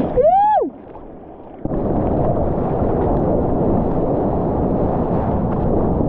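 Seawater sloshing and splashing around a camera held at the surface while a surfer paddles, with wind buffeting the microphone as a steady rough rush. A person gives a short high whoop that falls away right at the start, then the sound drops and goes dull for about a second before the rush comes back.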